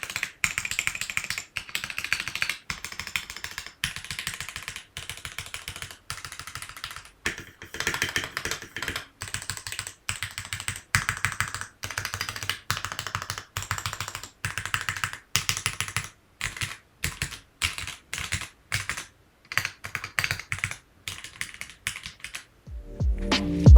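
Keychron Q5 mechanical keyboard's modifier keys pressed one at a time, a long series of separate clacks with short pauses between them. Music comes in near the end.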